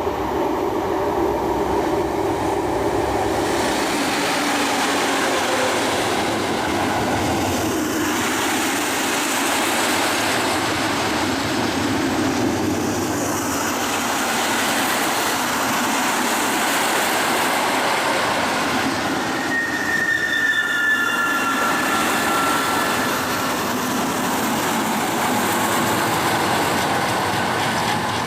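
A train hauled by a pair of class 203 diesel-hydraulic locomotives passing close by. Its wheels keep up a steady rolling rumble and clatter on the rails, with a brief high squeal about twenty seconds in.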